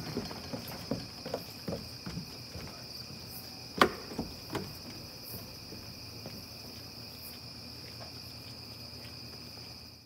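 Crickets chirring steadily in a night-time chorus. Scattered light taps and knocks sound over it in the first half, the sharpest about four seconds in.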